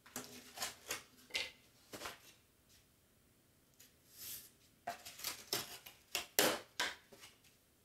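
Scratchy strokes and scrapes of a pen tracing on a sheet of craft board and of board pieces being shifted across a cutting mat, in two clusters of short sounds: one in the first two seconds and another from about four to seven seconds in.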